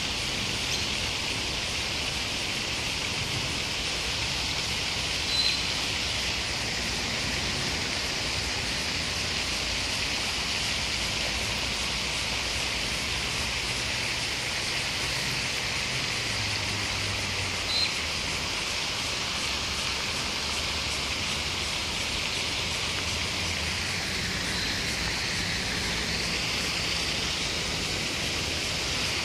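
Steady, even outdoor hiss with no clear single source, strongest in the upper-middle range, with two short high chirps about five and eighteen seconds in.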